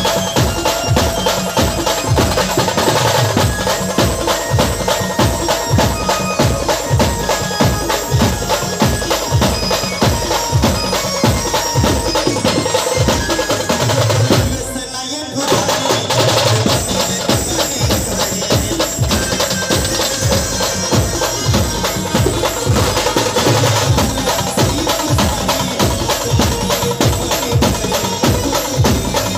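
Loud amplified band music of an Adivasi dance song, played through a truck-mounted speaker stack, driven by a fast, steady drum beat. The music drops away briefly about halfway through, then picks up again.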